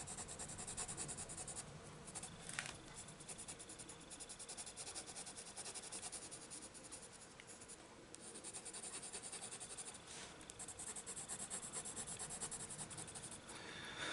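Blue coloured pencil scratching across a book page in quick, close shading strokes, pausing briefly a few times.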